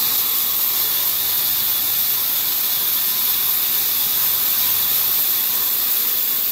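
Sawmill band saw running steadily, its blade cutting through a standing log: an even, unbroken hiss, strongest in the high register.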